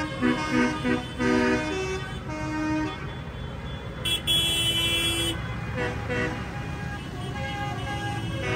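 Tractor horns tooting as the decorated tractors pass: a run of short blasts in the first second and a half, a longer, brighter blast about four seconds in, then more short toots, over the steady running of tractor engines.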